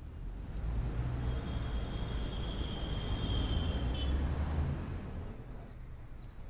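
Road traffic ambience: a low vehicle rumble that swells over the first few seconds and then eases off, with a thin high tone in the middle.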